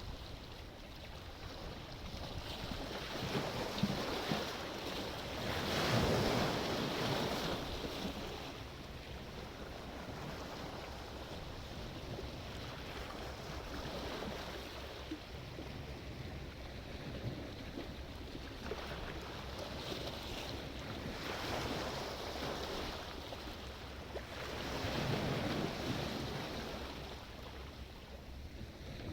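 Sea waves washing in and breaking on the shore, the surf swelling up every several seconds, loudest about six seconds in and again a few seconds before the end.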